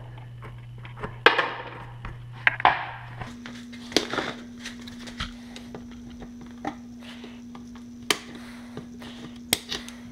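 Scattered knocks and clicks of a luggage wheel and the cut-off bolt pieces being handled and pulled apart, over a steady low hum that steps up in pitch about three seconds in.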